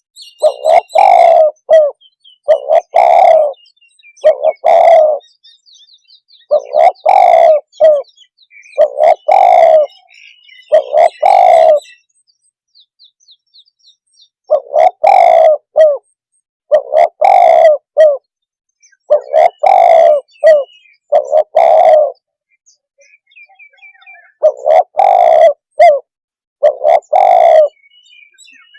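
Spotted dove (tekukur) cooing: the same short, loud cooing phrase repeated about every two seconds, with two brief pauses between bouts. Faint high chirps from smaller birds sound between the coos.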